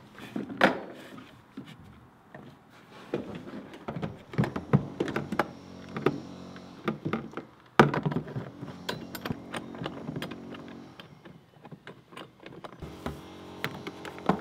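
Irregular knocks, clicks and clatter of plastic bathtub drain and overflow pipe fittings being handled and fitted together. A faint steady low hum comes in about halfway.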